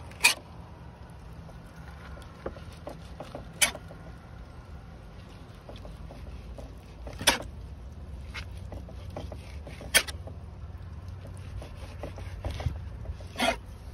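Fillet knife working a cero mackerel fillet on a plastic cutting board to cut out the bone strip down its middle: five sharp clicks, about three to four seconds apart, with fainter ticks between, over a steady low rumble.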